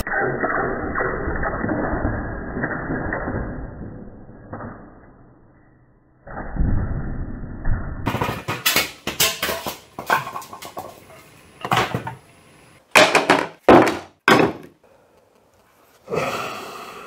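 Muffled music fades out and a deep boom hits about six seconds in. From about eight seconds a clatter of sharp cracks and knocks follows as a resin-and-vinyl-record blank breaks apart on a spinning wood lathe.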